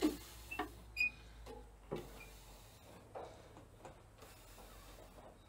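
Metal hand tools clinking and knocking against a tractor engine as a water pump is fitted: a handful of irregular clinks, the sharpest with a brief metallic ring about a second in, then a few lighter taps.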